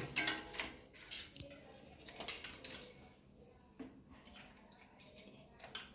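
Light metallic clicks and clinks of small bicycle parts being handled, irregular and spaced out, as a stuck stub of old gear cable is worked out of the shifter.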